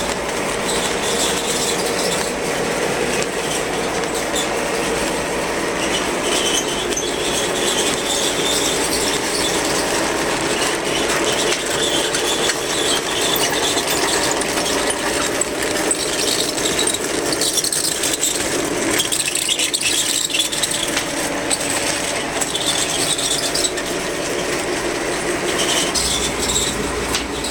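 O gauge model train running steadily on its metal track: a continuous rumble of motor and wheels, with squealing.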